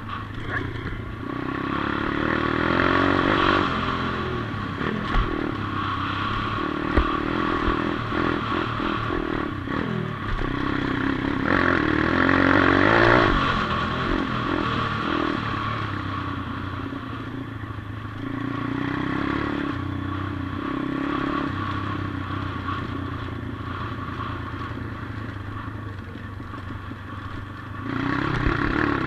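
140cc pit bike's single-cylinder four-stroke engine running while ridden on a dirt track, revs rising and falling with the throttle, loudest a couple of seconds in and again near the middle. There is a sharp knock about seven seconds in.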